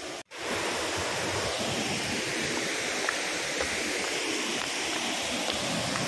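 Waterfall cascading down a rock face: a steady rush of falling water. The sound drops out for a split second just after the start.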